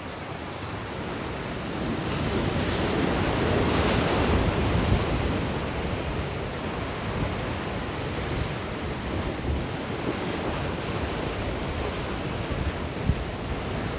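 Ocean surf breaking and washing, with a wave swelling to its loudest about four seconds in, and wind buffeting the microphone.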